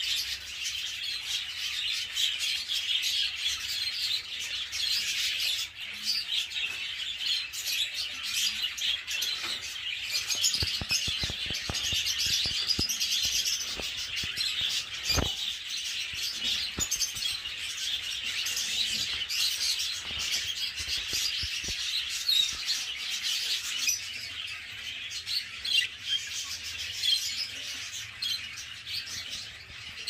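Many budgerigars chattering and warbling together in a continuous dense chirping. A few clicks fall in the middle, with one sharp knock about halfway through.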